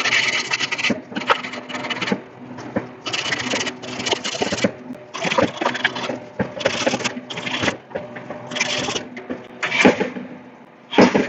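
A strip of sanding cloth pulled back and forth around copper refrigeration tubing, rasping in repeated strokes each about half a second to a second long, cleaning the pipe before brazing.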